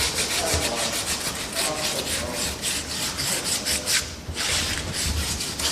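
Quick back-and-forth scraping with a hand tool, several strokes a second, with a short pause about four seconds in. It is the sound of carbon deposits being scraped out of the injector bore of a Land Rover Discovery 2's cylinder head so the new injector washer can seal.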